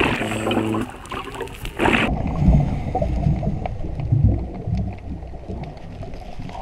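Scuba diver breathing underwater through a regulator. An inhale with a buzzing hiss cuts off about a second in. About two seconds in, the exhale follows as a low, uneven rumble of bubbles.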